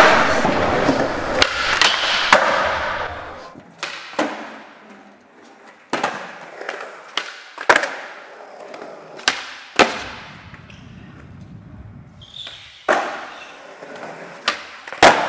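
Skateboard wheels rolling on smooth concrete, broken by a series of sharp clacks as the board pops, lands and hits ledges, with a quieter stretch about five seconds in.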